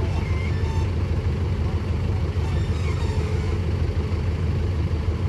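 Diesel engines of an excavator and dump truck running steadily, a continuous low rumble.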